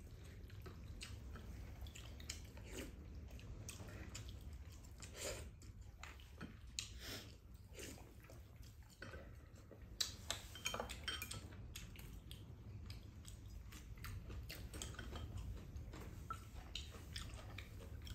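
Quiet mealtime sounds: spoons and chopsticks clinking and scraping against ceramic rice bowls, with some chewing. Scattered light clicks, the sharpest about ten seconds in, over a steady low hum.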